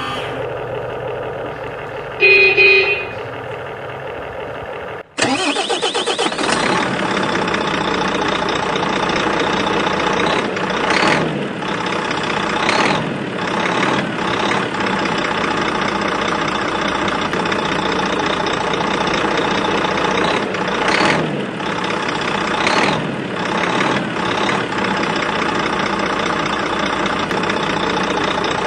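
Huina 1593 remote-control excavator running: a short beep about two seconds in, then from about five seconds in a loud, dense mechanical whine that starts abruptly and runs on steadily, surging briefly several times as it works.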